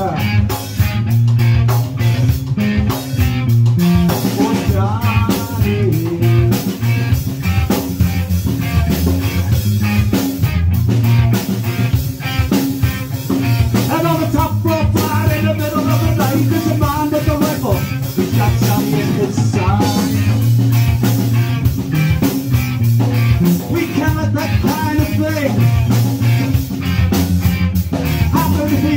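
Live punk rock band playing loudly: electric guitar, bass and drum kit driving a steady beat, with a singer's voice coming in at several points.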